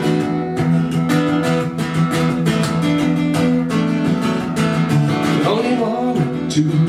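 Acoustic guitar strumming chords in a steady rhythm in an instrumental break of a song, with a brief wavering, gliding tone joining about five and a half seconds in.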